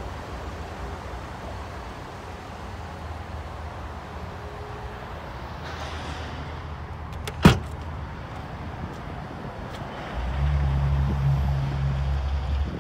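Tailgate of a 2018 Chevrolet Traverse opening: a single sharp click about seven seconds in, then a steady low motor hum for about two and a half seconds near the end, typical of the power liftgate raising itself.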